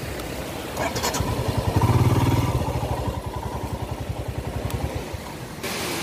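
Motorcycle engine running at low road speed, its exhaust beat swelling loudest about two seconds in and then easing off. Near the end it cuts to the steady rush of a waterfall.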